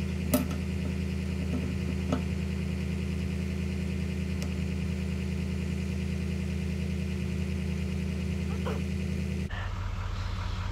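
Vehicle engine idling with a steady low hum, with a couple of short sharp sounds about half a second and two seconds in. The hum changes abruptly near the end.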